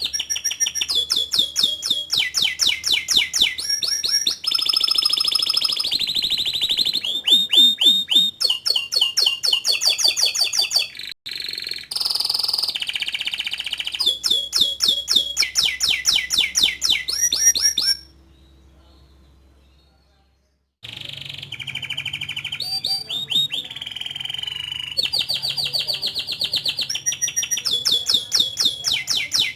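Domestic canary singing a long song of rapid trills, each phrase a quick run of repeated chirps that switches pitch every second or so. The song breaks off for about three seconds two-thirds of the way through, then picks up again.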